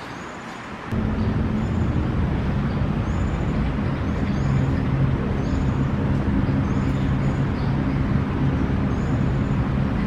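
Steady rumble of city road traffic, much quieter for about the first second before it returns. Faint short high chirps recur about once a second over it.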